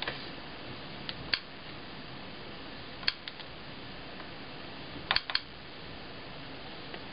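Light, scattered plastic clicks from stylus taps on the touchscreen and key presses of a Sharp Mobilion HC-4500 handheld PC, with a quick double click about five seconds in that is the loudest. A faint steady hiss lies underneath.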